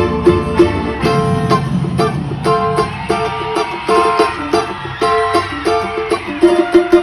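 Cavaquinho picking the song's introduction: quick, repeated plucked notes and chord strokes, over a low accompaniment underneath.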